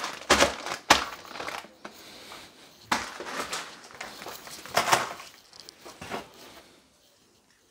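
Plastic instant-noodle packet crinkling and crumpling in the hand in irregular bursts, dying away near the end.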